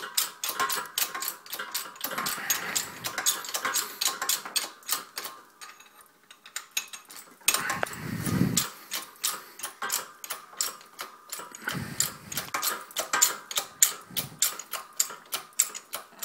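Harbor Freight 12-ton hydraulic shop press being worked by its jack handle while it presses a bearing onto an axle: rapid mechanical clicking, several clicks a second, with a short pause about six seconds in and a few dull low thuds, the strongest about eight seconds in.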